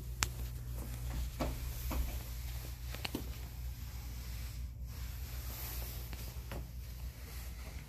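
Low steady hum in a small tiled room, with a few light clicks and taps scattered through it.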